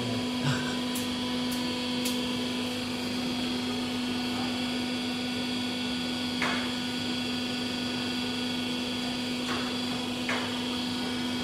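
Steady mechanical hum at a constant pitch, like an electric motor or pump running, with a few faint knocks.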